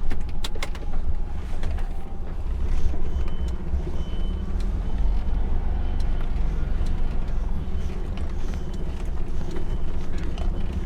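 Diesel engine of an HGV tractor unit running at low revs as the truck reverses slowly, a steady low rumble heard from inside the cab, with a few clicks near the start and faint short high beeps now and then.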